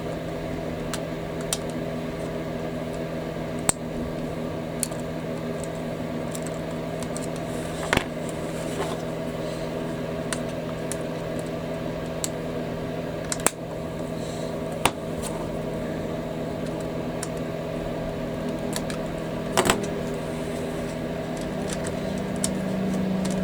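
A steady electrical hum with several held tones, over which small sharp clicks and taps come every second or few, the sound of tools and plastic model-kit parts being handled during assembly.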